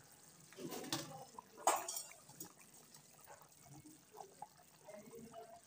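Chicken curry gravy bubbling at a full boil in a steel kadai, with small pops from the bubbles. A ladle stirs it and gives one sharp metal clink against the pan about two seconds in.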